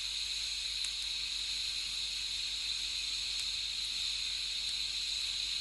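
TIG welding arc running off car batteries, a steady even hiss with no crackle or breaks, as the torch is held on the weld pool.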